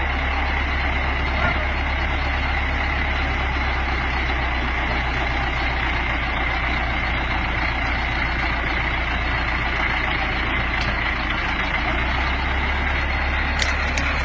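Heavy machine engine running steadily: a constant deep drone with a steady high whine above it.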